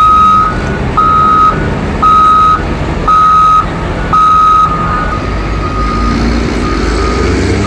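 Heavy machine's reversing alarm beeping about once a second: five loud beeps, then fainter beeps carrying on from about halfway through. Underneath, the diesel engines of a Komatsu wheel loader and a Caterpillar motor grader are running, their rumble growing louder near the end.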